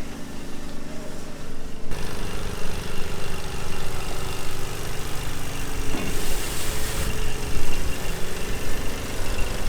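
Diesel engine of farm machinery running steadily, with a hiss lasting about a second roughly six seconds in.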